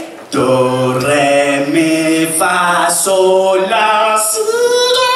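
A vocal group singing a cappella in close harmony, moving through several chords and holding a long final chord near the end.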